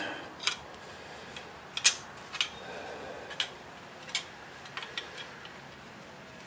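Light metal clicks and clinks of drum brake shoe hardware being handled and fitted onto a brake shoe by gloved hands, a scattering of separate taps with the sharpest about two seconds in.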